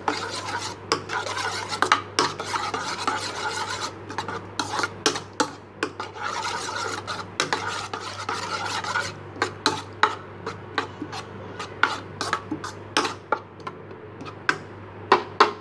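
An egg being beaten with a utensil in a plastic bowl of chopped onion, tomato and green chilli: quick wet scraping strokes against the bowl, broken by sharper separate clicks in the second half.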